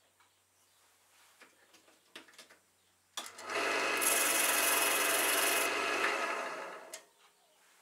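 A tool rubbing and scraping against wood spinning on a lathe, over the steady hum of the lathe motor. It starts abruptly about three seconds in, runs for about three seconds, then fades away. Before it there are only faint small clicks.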